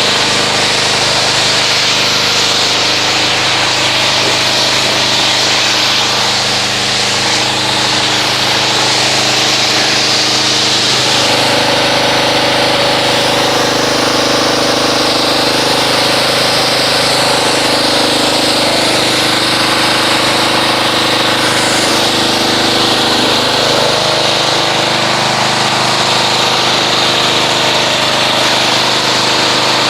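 Pressure washer running steadily, its motor and pump humming under the loud hiss of the water jet as it rinses soap and salt residue off a vehicle. The pitch of the hum shifts slightly about eleven seconds in.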